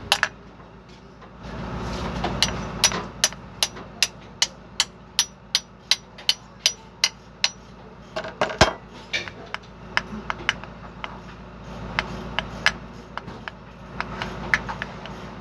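Hammer striking the steel flange yoke of a truck propeller shaft to seat a cross-joint (universal joint) bearing cup: a steady run of sharp metallic taps about two to three a second, then a few scattered taps.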